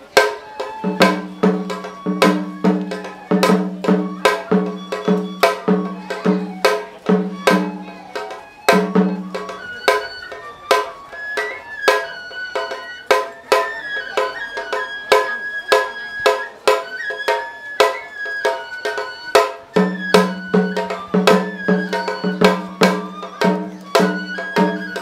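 Japanese shrine festival music: a bamboo transverse flute plays a melody over quick strokes on shime-daiko rope-tensioned drums. A deeper drum beats about twice a second through the first third, drops out, and comes back near the end.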